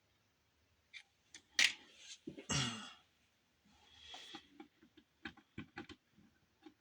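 Small plastic modular phone connectors and a crimping tool being handled: scattered sharp clicks, closest together near the end. A loud short breathy sound comes about two seconds in, and a softer hiss follows around four seconds in.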